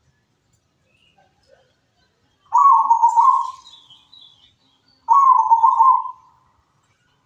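Local zebra dove (perkutut) singing in its cage: two stuttering, rolling coo phrases, each about a second long, the second about two and a half seconds after the first. Faint high chirps from another small bird sound between them.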